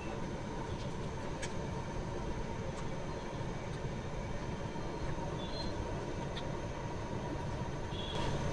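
Steady low rumbling background noise with a faint steady hum and a few faint clicks.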